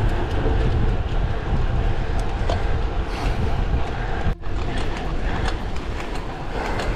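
Wind rumbling over the microphone of a camera on a road bike riding at speed, mixed with road noise. The sound drops out for an instant a little over four seconds in.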